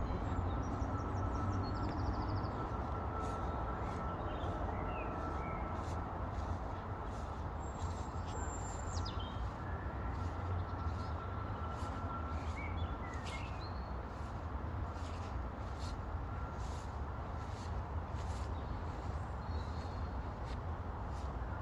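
Outdoor countryside ambience: scattered short bird chirps over a steady low rumble.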